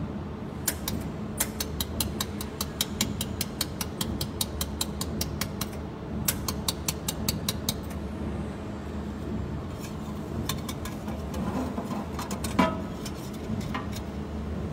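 Desktop jewelry laser welder (OPT-JW200) firing pulses: runs of sharp ticks, about five a second, then a few scattered ticks with one louder click, over a steady machine hum.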